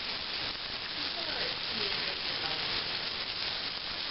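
Raw ground pork sausage patties sizzling steadily in hot fat in a metal frying pan.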